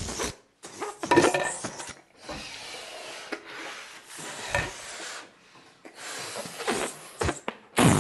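Air rushing and rasping out of balloons, in several bursts of a second or more with short gaps between, and a few sharp knocks of plastic cups near the end.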